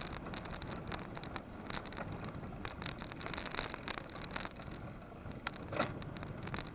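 Riding a bicycle with a mounted action camera: irregular rattling and clicks from the camera and bike over a steady rush of wind and road noise, with one louder knock near the end.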